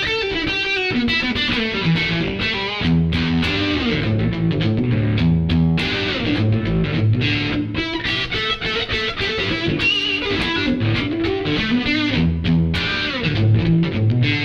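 Fender Stratocaster-style electric guitar playing blues through a Surprise Sound Lab Flex15 single-ended tube amp into a 2x12 cabinet, with some bent notes. The amp's mid selector is at its maximum-mids position with the treble fully up, giving a mid-heavy, lightly driven tone.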